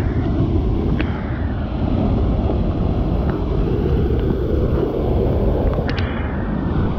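Swollen, muddy floodwater rushing and pouring over a concrete ledge, a steady loud rushing that does not let up, with a couple of faint clicks.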